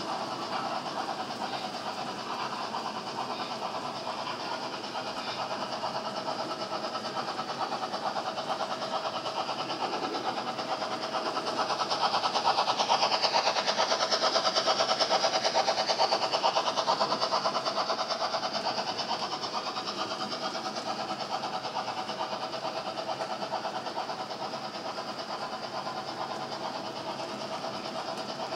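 HO-scale model trains running on the layout: BR 50 model steam locomotives' electric motors whirring and tank-car wheels rattling along the track, a steady mechanical clatter. It grows louder for several seconds in the middle as a locomotive and its tank cars pass close by on the lower track.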